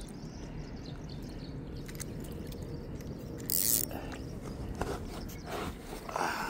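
Scraping and rustling handling noise, with one short loud hiss about three and a half seconds in, over a steady low rumble.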